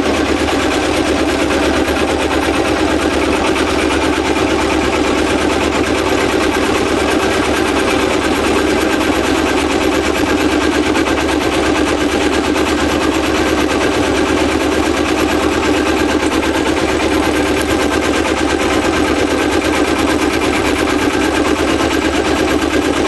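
A sailboat's engine running steadily under way, with a rapid, even beat.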